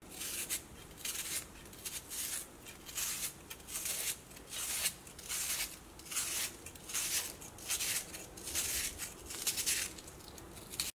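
A kitchen knife slicing a whole red onion held in the hand into thin slices, one short crisp cut after another at about two or three a second.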